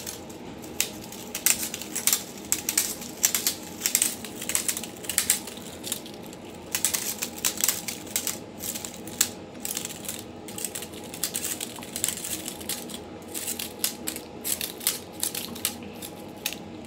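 Metal blades of a homemade Freddy Krueger-style claw glove clinking and scraping against each other in quick, irregular clicks as the gloved hand flexes and moves.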